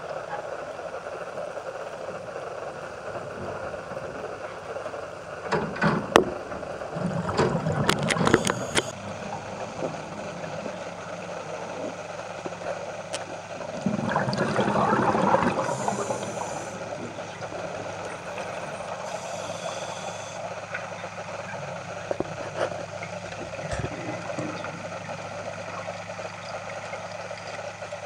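Underwater ambience: a steady low hum with louder bubbling and rustling bursts, one spell of them with a few sharp clicks about a third of the way in and another about halfway.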